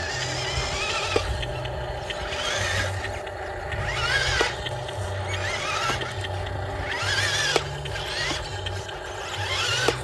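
Radio-controlled Mercedes-Benz Arocs dump truck's electric drive motor and gearbox whining, the pitch rising and falling over and over as the throttle is worked, with a few sharp clicks.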